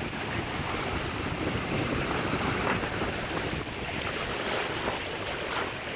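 Steady wind blowing across the microphone over small waves washing up onto a sandy beach.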